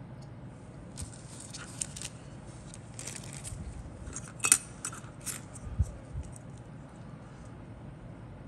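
Plastic sprues of a 1/48 scale model kit clicking and rattling as they are handled and set down on a cutting mat: a scatter of light clicks, the sharpest about halfway through, with a soft bump soon after.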